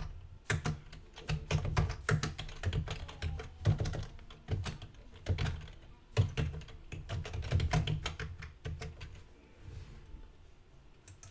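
Typing on a computer keyboard: bursts of quick keystrokes with short pauses between them, dying away about nine seconds in.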